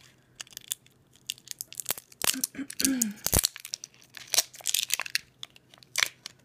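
Crinkling, scratching and tearing of packaging being picked open and peeled off rolls of washi tape by hand, with many small irregular clicks.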